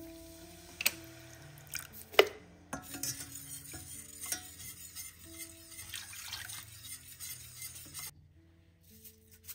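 Wire whisk stirring and clinking against a stainless steel saucepan as milk is whisked into melted butter and cornstarch for a white sauce, with one sharp metallic clink about two seconds in. The whisking stops about a second before the end, over soft background music.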